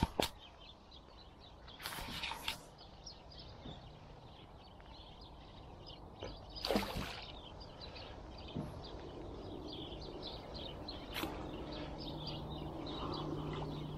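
A few sharp knocks and rustles from the rod and reel being handled while a hooked pike is played, over background bird chirping; a low steady hum comes in about halfway through.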